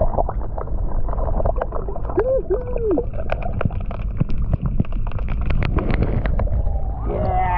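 Wind rumbling on the microphone, with water lapping and scattered clicks and knocks, thickest in the middle.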